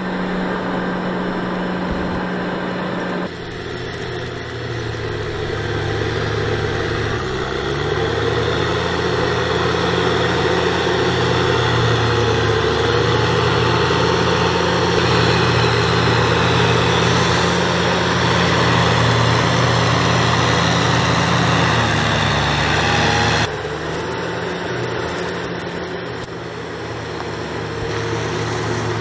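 Tractor diesel engines run steadily under load, pulling tillage implements through a flooded paddy field. The engine sound changes abruptly about three seconds in and again about six seconds before the end.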